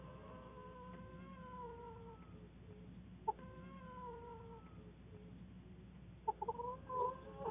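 Animal calls: two long drawn-out calls of about two seconds each, falling slightly in pitch, then a few short quick calls near the end.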